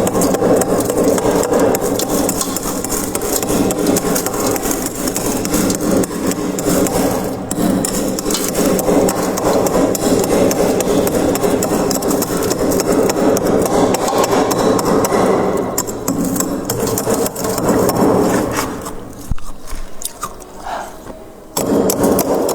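Freezer frost being scraped, a loud continuous rasping scrape that goes quieter and broken for a couple of seconds near the end, then resumes.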